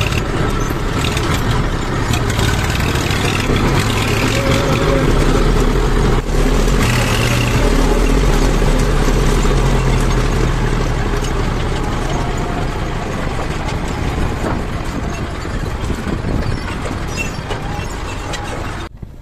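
Massey Ferguson 241 tractor's three-cylinder diesel engine running steadily while driving, heard close up from the driver's seat, with a brief dip about six seconds in.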